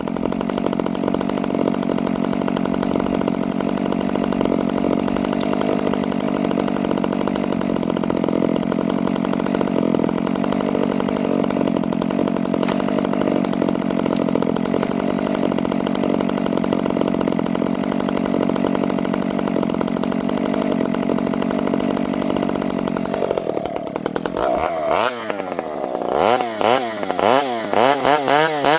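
Dolmar chainsaw running at high revs, steady, as it cuts into a tree for felling. Near the end it drops off the cut and revs up and down several times.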